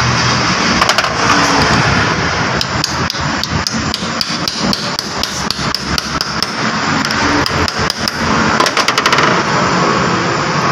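Hammer striking metal: a series of sharp taps at an uneven pace, with a quick run of close taps about eight seconds in, over a steady background hiss.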